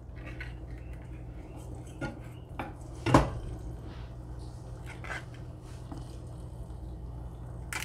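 Wooden chopsticks tapping and scraping against a stainless steel saucepan as sauced noodles are lifted out, a handful of separate light clicks with the loudest about three seconds in.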